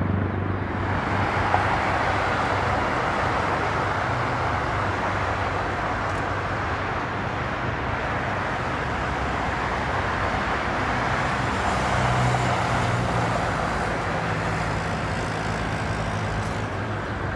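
A Boeing 777-200ER's twin Rolls-Royce Trent 895 jet engines heard from a distance, running steadily as the airliner waits on the runway: a constant rushing noise with a low hum underneath.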